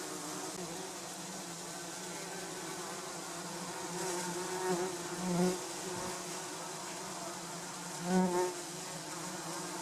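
Garden bumblebees buzzing in flight around the entrance of their nest box: a steady hum that swells louder as a bee passes close, about five seconds in and again near the end.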